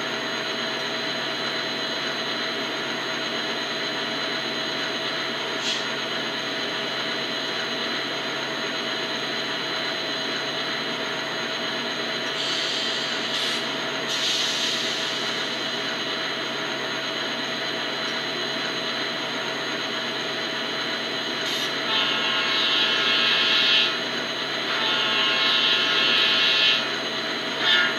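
Sound-equipped N-scale VIA Rail F40PH-2D model locomotive standing still, its tiny onboard speaker playing a steady diesel idle. Short hissing bursts come about halfway through and twice near the end.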